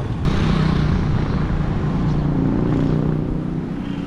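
A motor vehicle engine running close by, its pitch rising slightly about halfway through, over steady wind and road rumble from riding a road bike.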